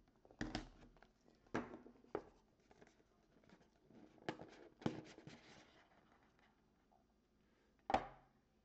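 Cardboard box of 2020 Leaf Valiant baseball cards being handled and opened by hand: a seal peeled, the inner box slid from its sleeve and the lid lifted, heard as scattered short scrapes and taps. One louder sharp knock near the end.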